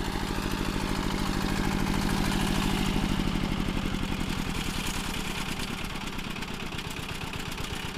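ZUBR 10 hp walk-behind tractor's single-cylinder engine running with an even, rapid throbbing beat. It grows a little louder toward the middle, then eases off.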